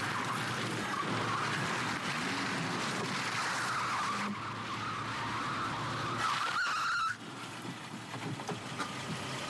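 A car driving at speed, engine and tyre noise running steadily, with a sudden drop in loudness about seven seconds in.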